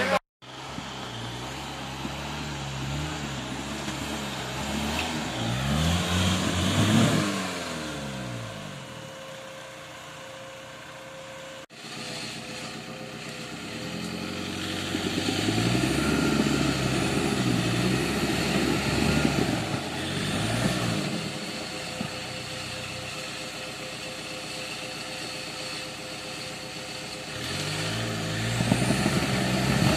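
Suzuki Samurai 4x4 engine revving under load off-road, the revs rising and falling in repeated surges, with a sharp break partway through.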